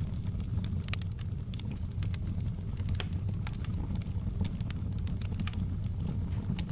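Fireplace fire crackling: irregular sharp pops and snaps, a few a second, over a steady low rumble.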